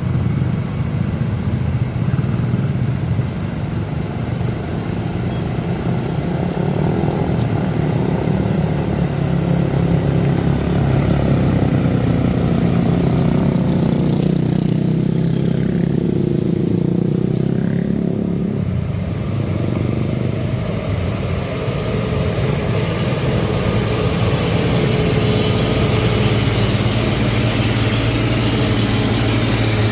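Engines of passing road traffic running steadily, easing off a little past the middle and then building again.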